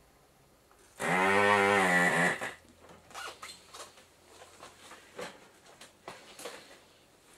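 Desoldering gun's vacuum pump running for about a second and a half as its trigger is pulled, a pitched motor buzz with a hiss of air sucking molten solder off a pin. After it come small clicks and knocks as the tool is handled, and one sharp click at the end.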